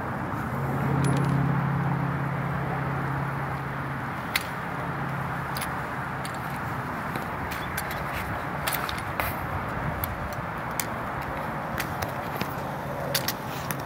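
Sharp clicks and slaps of a replica Springfield 1903A3 drill rifle with a fixed bayonet being spun, handled and caught, scattered through and more frequent in the second half. Beneath them is a steady outdoor rumble, with a low steady hum through the first half.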